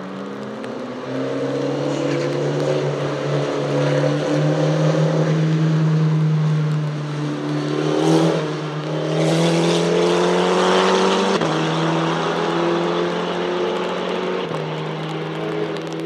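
Open-cockpit sports prototype race car's engine running on a wet track, its pitch rising in the first second and then held fairly steady through the corner. A burst of hiss comes about eight seconds in and again around ten seconds, as the tyres throw spray.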